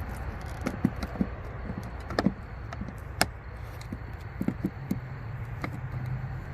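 Scattered sharp clicks and knocks as a three-prong RV shore-power cord plug is handled and fitted to its inlet, over a steady low background rumble.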